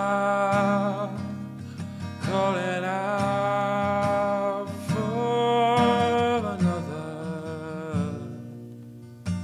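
Steel-string acoustic guitar played under a man's voice singing long held notes that slide up into each pitch, in phrases of about two seconds. Near the end the voice stops and the guitar rings on more quietly.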